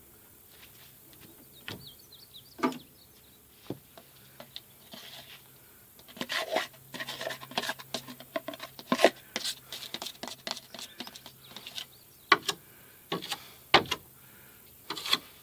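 Scattered light knocks, taps and clatter of building materials and tools being handled, with some rustling. A few faint bird chirps about two seconds in.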